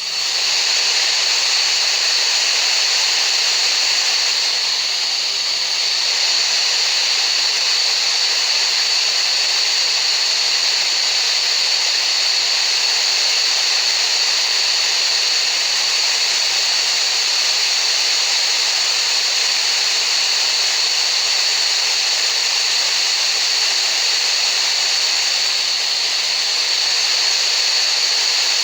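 Tinnitus-masking noise: a steady, even hiss weighted toward the high end, with a thin constant high-pitched tone running through it.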